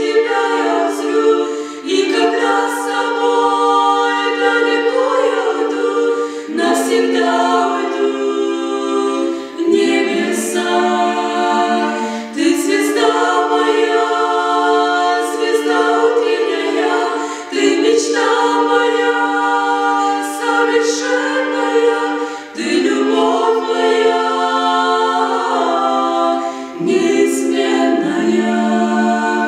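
Vocal quartet of three women and a man singing a Russian-language Christian song a cappella in harmony, with no instruments. The voices hold sustained chords in phrases a few seconds long, with brief breaths between lines.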